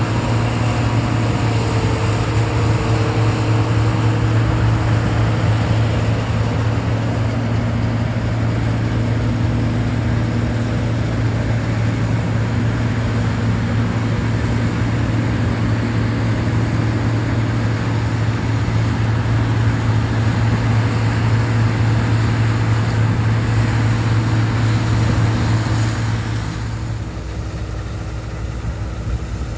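Large diesel engine of harvest machinery running steadily with a deep hum, getting quieter near the end.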